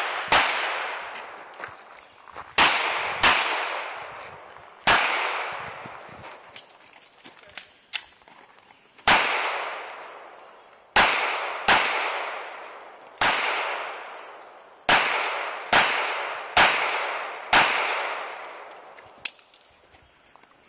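Handgun fired during a practical pistol course of fire: about fourteen single shots at uneven spacing, some in quick pairs about two thirds of a second apart, with a longer pause between about 5 and 9 seconds in. Each shot is followed by a long echoing tail.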